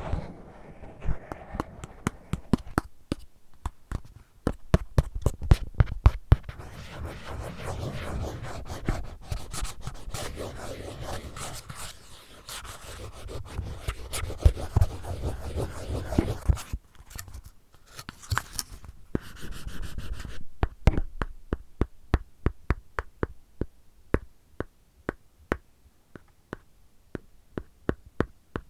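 Scratching and rubbing on an earphone case, with many small clicks, turning in the last third to steady tapping on it, about two to three taps a second.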